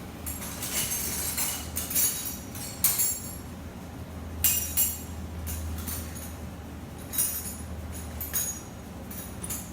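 Metal hand tools clinking and rattling against each other in a series of sharp, irregular clinks, as a screwdriver and a 13 mm wrench are rummaged for, over a steady low hum.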